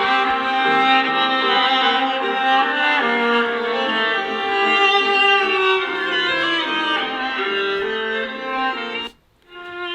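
Samsung Galaxy Note 20 Ultra ringtone playing, a melody with a violin-like string sound. It cuts off abruptly about nine seconds in, and the next ringtone starts just before the end.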